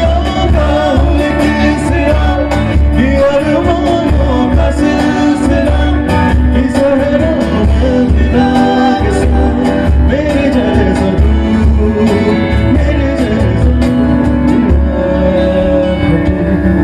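A live band is playing a song: a male singer over two strummed acoustic guitars, an electric bass guitar, a cajon keeping a steady beat, and a keyboard.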